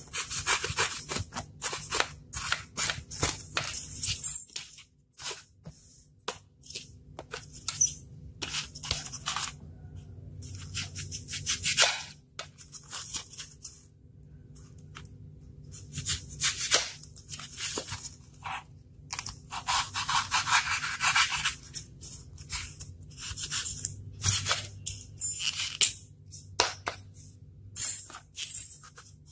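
Styrofoam block being cut with a snap-off-blade utility knife and broken by hand: irregular runs of short, scratchy scrapes and snaps with brief pauses, and one longer drawn-out scrape about two-thirds of the way in.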